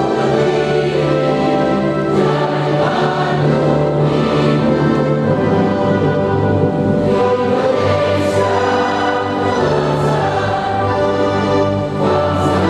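Choir singing in sustained chords with instrumental accompaniment.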